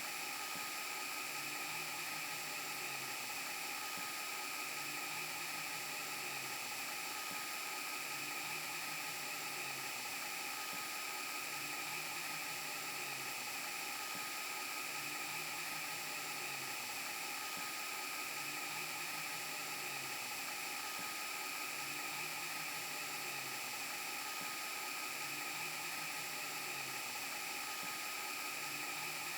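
VHS rewind glitch and broken-TV sound effect: a steady static hiss with high whining tones, under a low wobbling hum that repeats about every two seconds.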